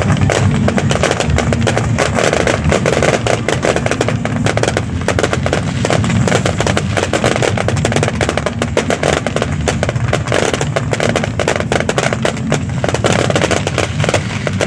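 Fireworks going off in a dense, continuous barrage of rapid bangs and crackles, many a second.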